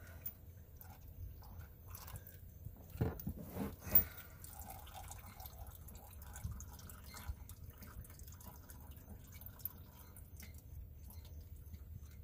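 Engine oil draining from a truck's oil pan in a thin stream, trickling and dripping into a drain pan below. A few short knocks sound about three to four seconds in.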